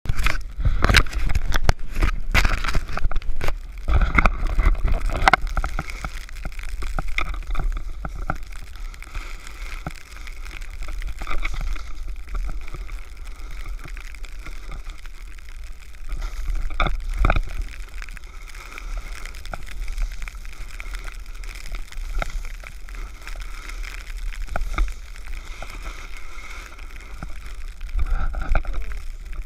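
Snowboard sliding and scraping over fresh snow, with wind rushing over a pole-mounted GoPro Hero3 as a steady deep rumble. The first few seconds are full of knocks and bumps, with a couple more a little past halfway and near the end.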